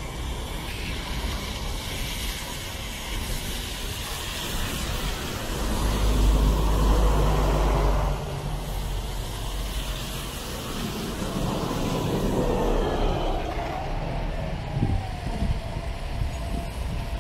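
City bus engine running as the bus approaches and turns close by, with a low rumble that is loudest for about two seconds near the middle, over tyres hissing on wet pavement and street traffic.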